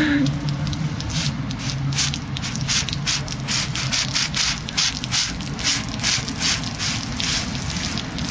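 Carbonation hissing out in repeated spurts as the cap of a plastic bottle of kefir-fermented cider is eased open; the gas built up during refermentation in the bottle makes it foam up into the neck.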